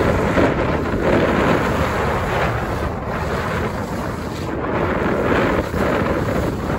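Wind buffeting the microphone of a skier's camera during a fast downhill run, mixed with the hiss and scrape of skis on groomed snow. The rumble swells and fades unevenly.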